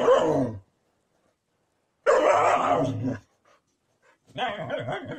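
Husky vocalizing in three drawn-out calls with bending pitch: one right at the start, one about two seconds in, and one near the end.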